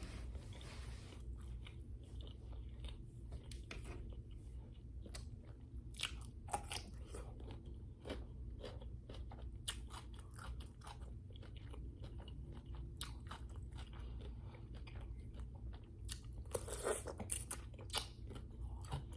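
Close-up eating sounds: a person chewing and biting food, with many small wet clicks and crunches and a louder run of crunching near the end.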